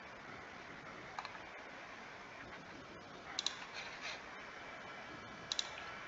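Computer mouse clicking three times. Each is a quick pair of sharp clicks, heard over a steady faint hiss.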